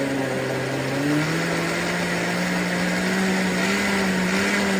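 PRASKY countertop blender motor running while blending a fruit smoothie, a steady whirring hum that rises in pitch about a second in, then holds steady as it speeds up.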